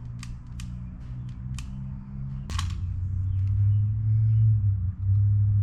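A run of sharp clicks, then, with a louder click about two and a half seconds in, a steady low hum from the tool heating the end of a glue stick, which is being used to pull a broken key out of an RV lock.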